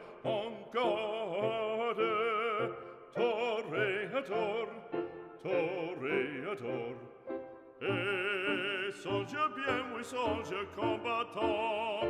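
Background music: an operatic voice singing phrases with wide vibrato, with short breaks between phrases.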